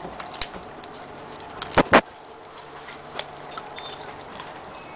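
Small dog chewing a raw meaty bone: irregular crunching clicks, with two loud cracks close together about two seconds in.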